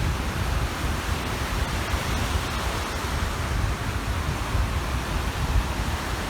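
Waves washing onto the shore in a steady rush, with wind buffeting the microphone in low rumbling gusts.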